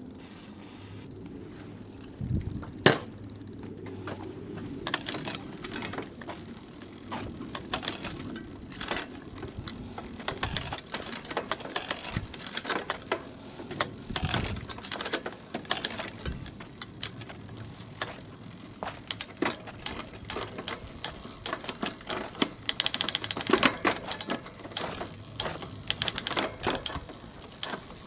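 Bicycle thumb shifter and derailleur being worked by hand, giving irregular sharp clicks and rattles, with one loud click about three seconds in. The grimy shifter mechanism is being flushed with brake cleaner and is not shifting up to the highest gear.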